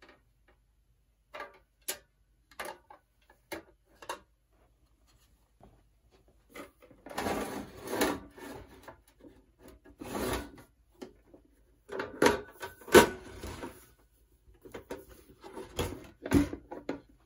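The case of a Hynade CUT60DN plasma cutter being shifted and turned over on a workbench: a few light clicks, then bouts of scraping and knocking as it slides and sets down, the loudest knock about two-thirds of the way through.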